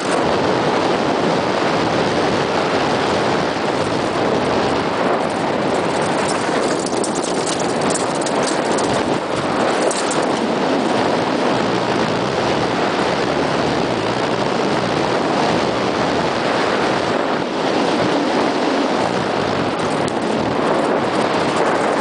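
Mountain bike descending fast on a gravel and stone track: tyres rumbling over the loose surface and wind rushing over the microphone, with small knocks and rattles from stones.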